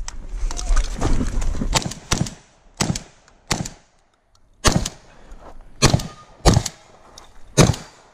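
A shotgun fired in a quick string of about eight shots, starting about two seconds in and spaced half a second to a second apart, as the shooter engages steel targets.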